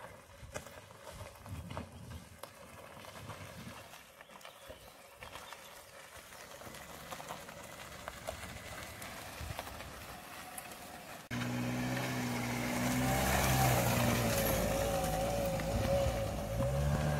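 Mitsubishi Lancer sedan's engine straining and revving up a wet, muddy dirt track, its wheels slipping. The engine is faint at first, comes in suddenly and much louder about eleven seconds in, then rises and falls in pitch.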